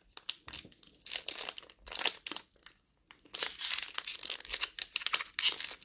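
A trading card pack wrapper being torn open and crinkled by hand, in irregular crackling bursts with a short pause about three seconds in.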